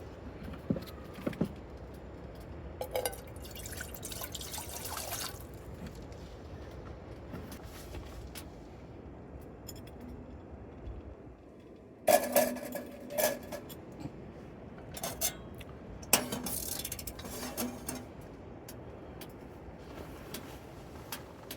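Cookware being handled: clinks and knocks of pots and utensils with liquid sounds, over a steady faint hiss. The loudest knocks come in two clusters, about halfway through and again a few seconds later.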